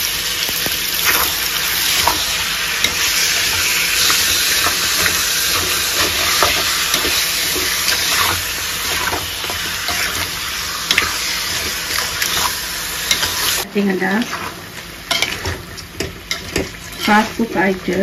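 Chicken pieces sizzling in hot oil in a wide metal curry pan, stirred and turned with a wooden spatula that scrapes against the pan. About fourteen seconds in, the sizzle drops off suddenly, leaving quieter scraping and clicks of stirring.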